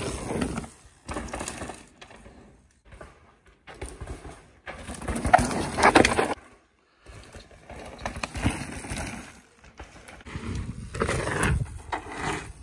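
Mountain bike ridden fast on a dry dirt trail: tyres rolling and skidding on loose dirt and the bike rattling over the bumps. It comes as a series of separate passes with abrupt cuts between them, loudest as the bike goes close by about five to six seconds in.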